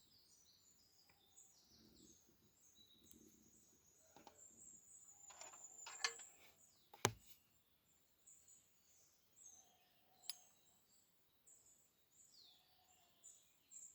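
Faint high chirping with a few sharp clicks and taps; the loudest clicks come about six and seven seconds in.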